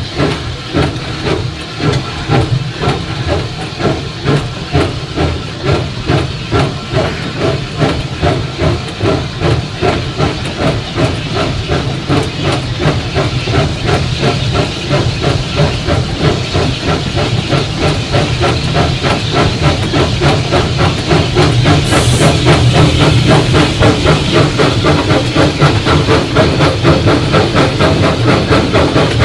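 Steam locomotive, a 4-4-0 American type, heard from inside its cab while running: exhaust chuffing in a steady, even rhythm, with steam hissing. The chuffing grows louder about two-thirds of the way through.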